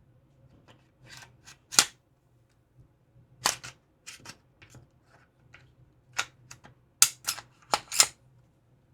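Glock 19 Gen 6 pistol being handled and reassembled after cleaning: a series of sharp metallic clicks and clacks from its slide and parts, several in quick succession near the end.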